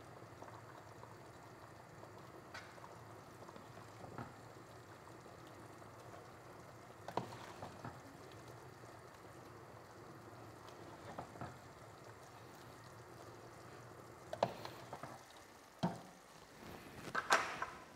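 Faint steady bubbling of a pot of boiling pasta water, with several short splashes and drips as cooked fusilli are scooped out with a slotted spoon and dropped into a pan of béchamel sauce; the loudest comes near the end.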